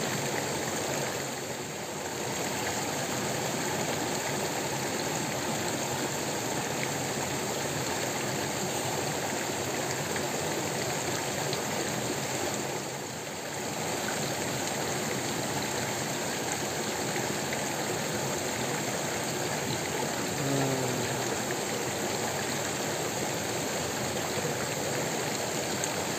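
Fast-flowing shallow stream running over rocks: a steady rush of water, briefly a little quieter twice.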